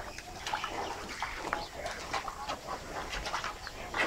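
Birds chirping in short, scattered calls over a low steady background noise.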